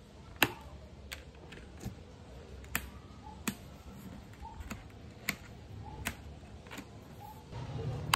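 A series of sharp, short plastic clicks, roughly one every three-quarters of a second and a little uneven, as the vents of an AGV K1S motorcycle helmet are worked by a gloved hand.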